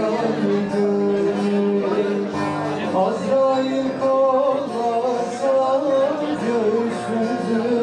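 Live folk music: singing with a plucked string instrument, in sustained, bending notes.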